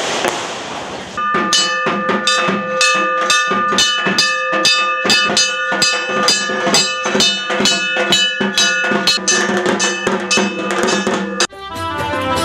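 Fast devotional percussion: sharp strokes, several a second, with a ringing struck-metal tone over them. It opens with a brief hissing wash. Near the end it cuts off suddenly and a song with fuller instruments and bass begins.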